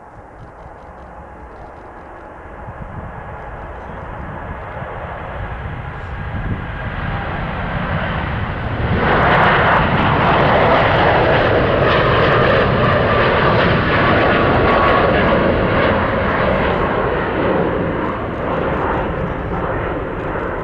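Boeing 787-9 Dreamliner's twin turbofan engines at takeoff thrust, a rumble and roar that grows as the airliner rolls down the runway and lifts off. It rises sharply to its loudest about nine seconds in, then eases off slightly as the jet climbs away.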